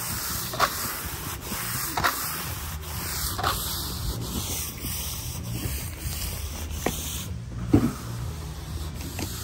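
Steel hand trowel scraping over wet resin-bound gravel, a gritty rasping in repeated, irregular strokes, one stronger stroke near the end.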